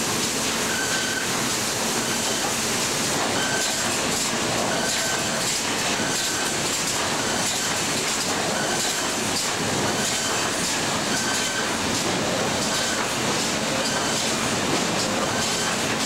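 Sawmill machinery running: a steady, loud din of motors and chain conveyors with boards clattering along them. A short high squeal or tone repeats about every one and a half seconds.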